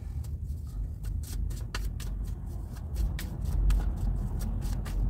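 Tarot deck being shuffled by hand, the cards giving quick, irregular crisp clicks and snaps. A steady low rumble runs underneath.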